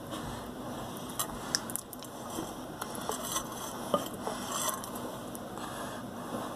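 Sticky glue slime being kneaded by hand, with irregular small squishes and pops.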